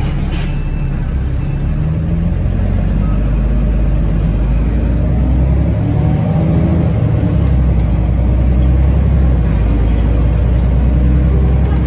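A moving road vehicle's engine and road noise heard from on board: a loud, steady low rumble, with the engine note shifting a little as it drives.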